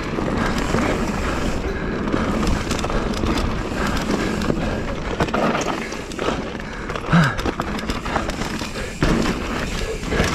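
Mountain bike riding fast down a dirt singletrack, heard through a GoPro action camera on the rider: a steady rush of tyres rolling over dirt and leaves, with constant clicks and knocks from the chain and bike parts rattling over bumps.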